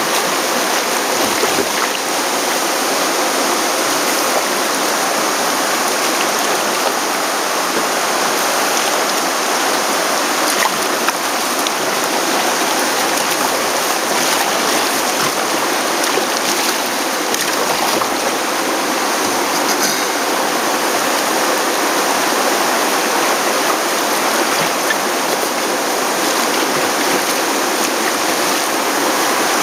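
River water rushing and splashing around a sit-on-top kayak running through riffles and small rapids, heard close up from a camera mounted on the kayak; a loud, steady rush with no letup.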